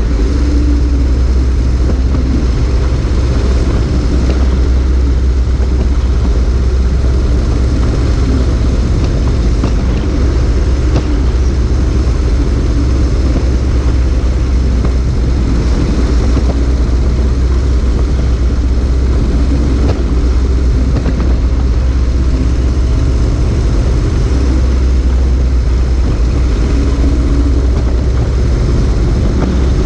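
Motorcycle riding at a steady speed, heard from a camera mounted low by the front wheel: a loud, steady rumble of wind on the microphone over engine and tyre noise, with no marked rises or falls.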